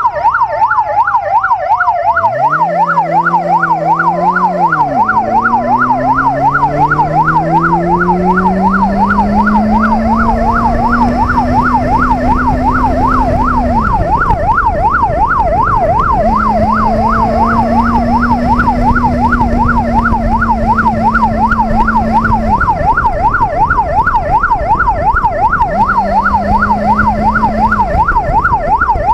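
Police motorcycle's electronic siren wailing in a rapid, continuous up-and-down yelp. Under it the Benelli QJ BJ600J-A's 600cc inline-four pulls away from a stop, rising steadily in pitch as it accelerates, then holds steady at cruising speed, easing off twice.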